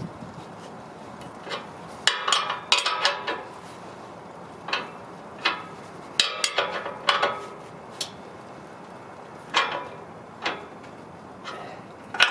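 Sharp metallic clinks of hand tools on the new leaf-spring shackle bolt and nut, coming in irregular clusters with a short ring after each, as the bolt hardware is tightened.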